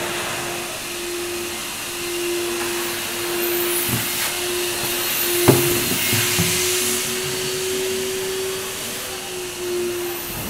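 A steady machine hum: a constant whine over a whooshing noise, like a motor or fan running, with one sharp click about five and a half seconds in.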